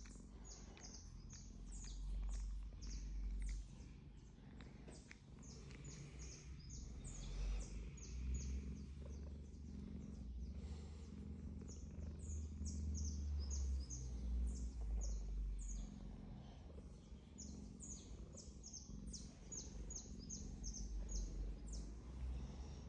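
Domestic cat purring, a low rumble that swells and fades with each breath. Many quick, high, falling bird chirps sound repeatedly over it.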